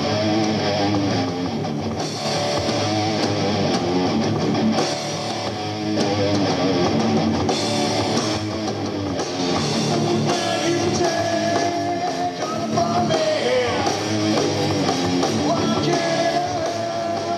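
Rock band playing live: electric guitar, bass guitar and drums, with a man singing into a microphone over them.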